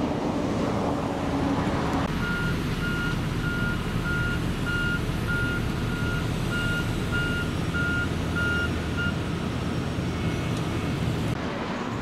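Construction vehicle's reversing alarm beeping about twice a second, starting about two seconds in and stopping some seven seconds later, over the steady rumble of a heavy engine running.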